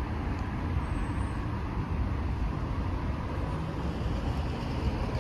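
Steady road traffic noise from cars running along the street, a constant low rumble with no distinct events.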